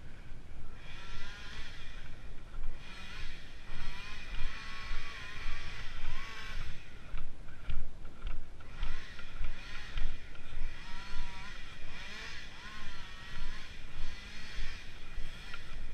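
Long handsaw cutting timber in regular push-pull strokes, about one a second, with a wavering whine over the rasp of the teeth.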